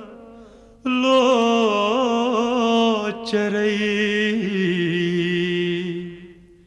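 Solo voice singing a Kashmiri song: one long, ornamented phrase with wavering held notes that starts about a second in and fades out near the end.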